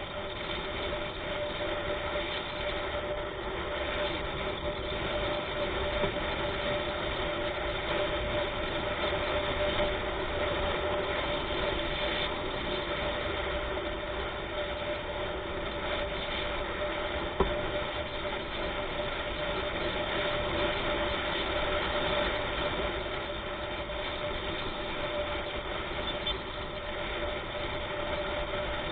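Steady vehicle engine and road noise while driving along, with a single sharp click past the middle. No siren is sounding.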